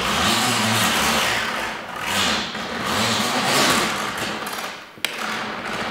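Hand-cranked shop vac hose reel winding the hose back in: a continuous rubbing, rushing noise of the hose being drawn in and wound onto the reel, swelling and fading with the turns of the crank. A single sharp click comes near the end.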